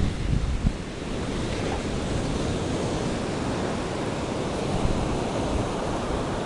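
Ocean surf breaking steadily, with wind buffeting the microphone, heaviest in the first second.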